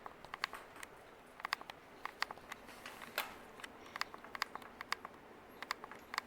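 Westinghouse Apollo Elite ceiling fan running on high speed, a faint steady whir under frequent sharp, irregular clicks, several a second.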